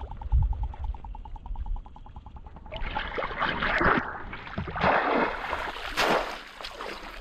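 Water splashing in several bursts from about three seconds in, as a bamboo polo fish trap is plunged down through shallow muddy water.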